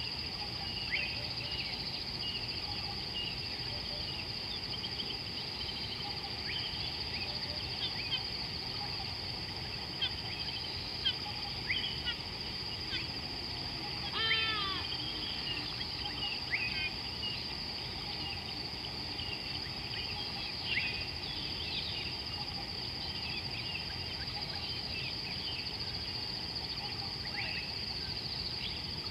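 Wild birds calling: scattered short chirps and whistles throughout, with one louder falling call about halfway through, over a steady high-pitched hum.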